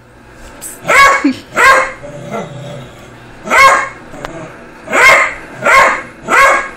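A dog barking at a beer bottle standing still on a side table: six single barks in ones and twos, with a low growl between some of them.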